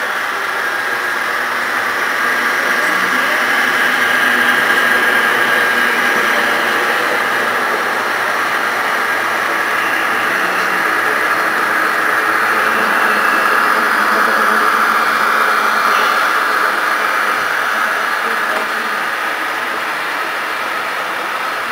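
HO scale model trains running on the layout: a steady whir of the locomotives' motors and wheels on the track, swelling a little in the middle as trains pass close, with faint voices in the background.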